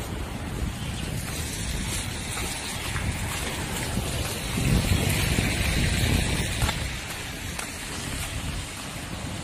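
Wind buffeting the microphone outdoors in a storm: a gusting low rumble over a steady hiss, strongest about five seconds in.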